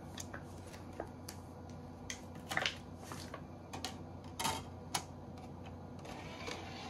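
A compact disc being handled, slid out of its sleeve and set into the open CD-ROM drive tray of a Sun Ultra 5 workstation: scattered light clicks and short rustles, the sharpest about two and a half and four and a half seconds in, over a steady low hum.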